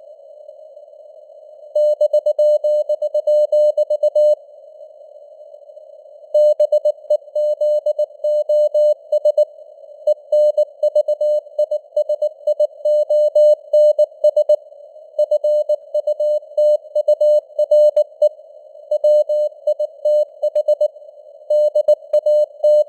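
Morse code (CW) at 19 words per minute: a single steady mid-pitched tone keyed on and off in dots and dashes, set in a narrow band of simulated radio hiss. The keying stops twice in the first six seconds, each time for about two seconds, and otherwise runs on.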